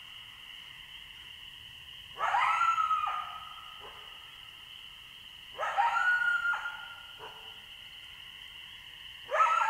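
Wolf howling in three short calls, about three and a half seconds apart. Each call rises at the start and then holds a pitched note for about a second.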